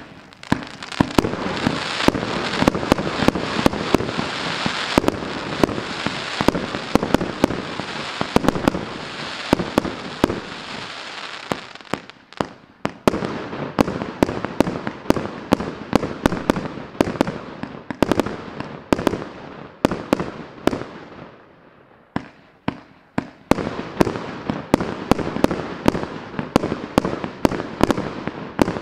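Maxsem MC301 30 mm, 300-shot fireworks cake firing in rapid succession: a dense stream of sharp bangs and pops from launches and aerial bursts. It starts abruptly, thins out briefly about twelve seconds in and again about twenty-two seconds in, then picks up again.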